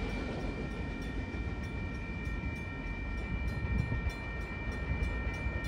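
Grade-crossing warning bell ringing steadily with the gates down, over the low rumble of the last freight cars rolling away over the crossing.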